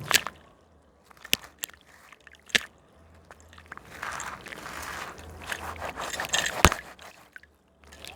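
A gritty slab crumbling in water: a few sharp cracks, with a longer stretch of grainy crumbling in the second half. The loudest crack comes near the end.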